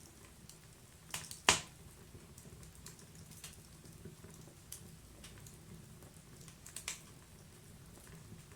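Wood fire burning in a fireplace, crackling with scattered small pops over a faint steady background. One loud snap comes about a second and a half in, with smaller crackles clustering just before it and again near the end.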